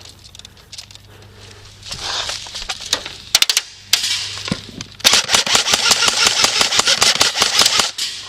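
Electric airsoft gun firing: a couple of quick shots a little past three seconds in, then a long full-auto burst of about three seconds of rapid, evenly spaced cracks.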